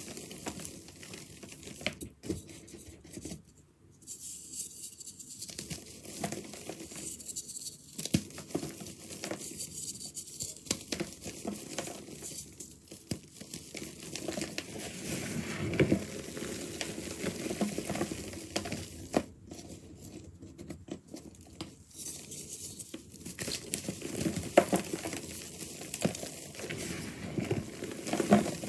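Hands crushing dry, crunchy reformed powder blocks, crumbling them to dust in an irregular run of crackles and crunches.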